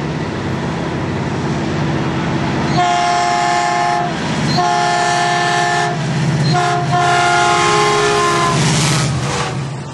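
Caltrain diesel passenger locomotive running toward the camera and blowing its multi-tone horn in a long, long, short, long pattern, the grade-crossing signal. Near the end it passes close underneath, and the engine noise swells into a rush.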